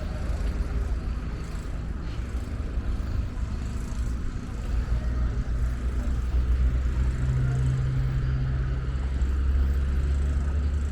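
Street traffic: a motor vehicle's engine running close by, its low rumble growing louder about halfway through.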